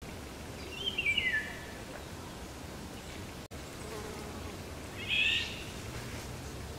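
Two short, high, chittering bird calls: one falling in pitch about a second in, and a second about five seconds in, over a steady outdoor background hiss.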